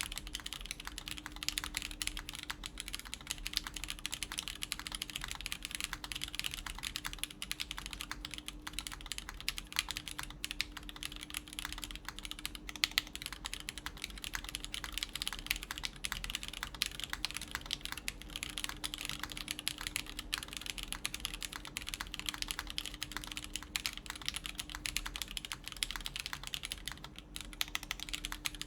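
Continuous, fast typing on a tenkeyless mechanical keyboard. It has lubed Everglide Tourmaline Blue switches with films, in a polycarbonate-plate build, and GMK keycaps clack densely with no pauses.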